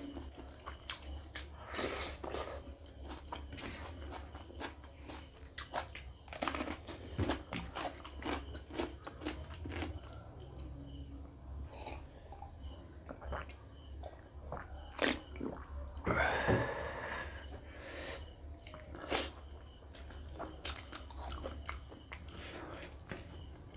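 Close-miked chewing and wet mouth smacks of a person eating pork ribs curry and rice by hand. There are many short clicks, and one louder sound lasting about a second about two-thirds of the way through.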